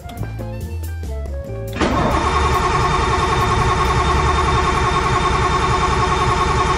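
Nissan Skyline R32 engine catching about two seconds in, after a short stretch of background music, and then running steadily and loudly. This is its first start after an oil and filter change.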